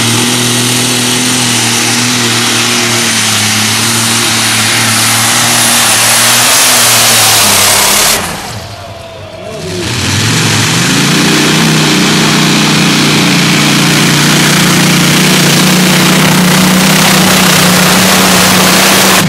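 Light Modified pulling tractors' engines running flat out under load during two pulls, edited back to back. The first holds a steady high note with a thin high whine over it. After a brief drop about eight seconds in, the second climbs in pitch and holds steady, cutting off abruptly at the end.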